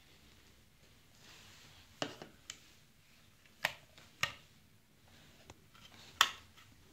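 Wall light switch flicked off and on several times to check for power, giving sharp clicks in small groups, with the loudest click near the end.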